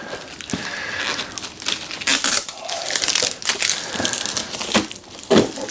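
Packing material and tape on a new printer crinkling and rustling in irregular bursts as they are handled and pulled off.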